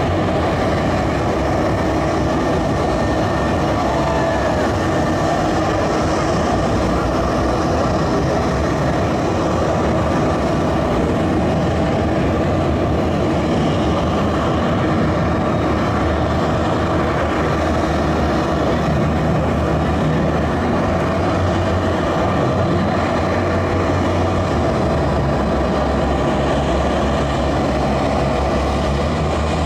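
Jet engine idling on the ground: a steady rumble with a faint high turbine whine, the low rumble growing a little stronger in the second half.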